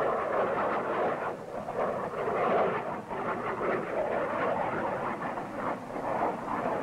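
Jet noise from a low-flying F-4 Phantom II fighter, a steady rushing sound that swells and dips, with a brief dip about three seconds in.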